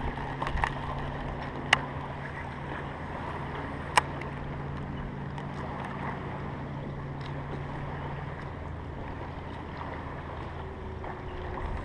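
Steady low hum of a bass boat's electric trolling motor, with wind noise on the microphone; the hum fades near the end. Two sharp clicks sound about two and four seconds in.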